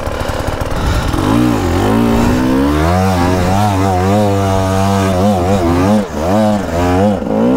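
Petrol dirt-bike engine revving, the throttle opened and shut over and over so the pitch swells up and falls back many times, starting about a second in.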